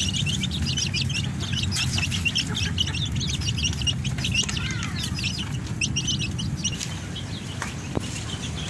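A group of young chickens peeping: many short, high-pitched chirps in quick succession, thinning out near the end, over a steady low rumble.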